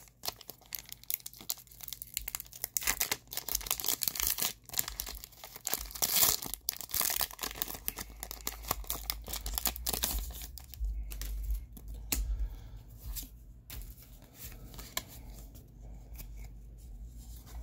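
Foil wrapper of a Pokémon booster pack being torn open and crinkled by hand: a dense crackling of tearing and rustling foil, thinning out after about ten seconds into sparser rustles as the cards are handled.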